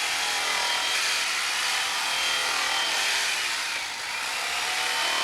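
Electric carving knife running steadily, a motor buzz with a faint high whine, easing slightly about four seconds in.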